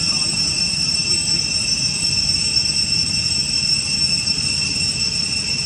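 Cicadas droning in a steady, loud, high-pitched chorus, with a low, even rumble underneath.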